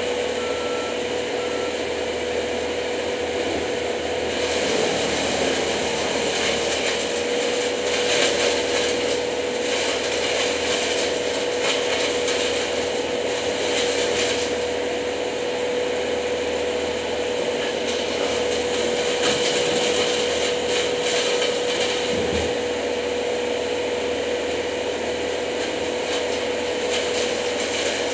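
Climbing rope being pulled down hand over hand, rubbing and swishing as it runs, over a steady hum.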